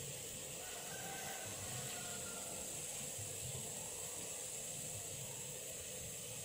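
Steady, even hiss with a constant high-pitched band over it, and faint short tones about one and two seconds in.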